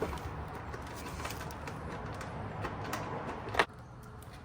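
A screw being turned into the plastic mud flap and its mounting hole under the car: a steady scraping with faint small ticks that ends in a sharp click about three and a half seconds in.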